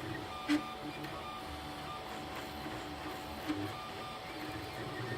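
3D printer's stepper motors whining in short, changing tones as the print head moves back and forth laying down the first layers of an ABS print, over a steady hum. A sharp click about half a second in and a smaller one about three and a half seconds in.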